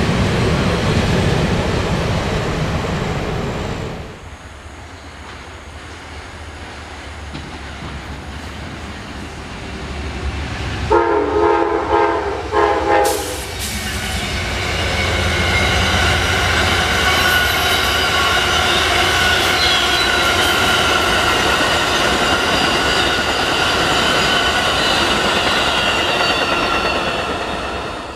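A freight train of covered hopper cars rolls past, its wheels clacking, until a sudden cut about four seconds in. About eleven seconds in, an approaching Amtrak passenger train sounds its horn in short blasts. Two Amtrak diesel locomotives and their passenger cars then pass loudly, with a steady high wheel squeal over the rolling noise.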